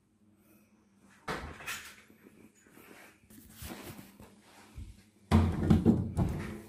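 A white interior door being handled and opened: a knock about a second in, small rattles of its metal latch, and a louder cluster of thumps and rubbing near the end as the door is pushed open.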